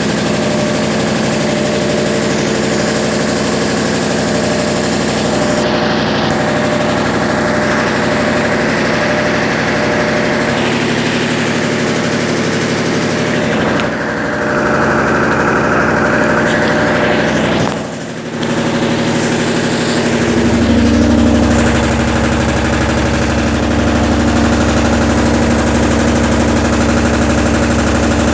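Consul Facilite 10 kg top-loading washing machine running in its rinse and spin cycle: a steady motor hum. About 18 seconds in the sound dips briefly, then comes back as a deeper, louder hum.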